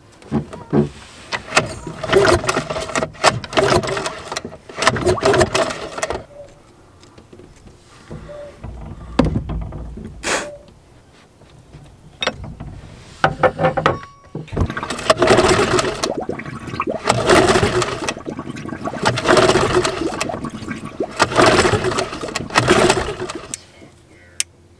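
Small outboard motor being pull-started over and over: a run of rope pulls, each a short whirring crank, then a pause and a second run of pulls, the engine turning over without catching. The outboard has been failing and will not start.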